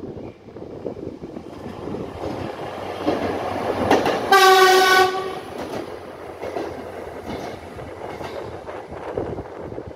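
RA1 diesel railbus passing close by, its running noise and wheels on the rails growing louder as it approaches. As it draws level it gives one loud horn blast of about a second on a single steady note, then the noise fades as it pulls away.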